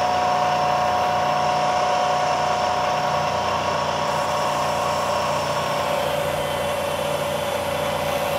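1968 Bridgeport milling machine with a variable-speed Dynahead running, its spindle making a steady whine and hum as the end mill cuts into a block of RenShape tooling board. The whine shifts slightly lower in pitch a little past the middle.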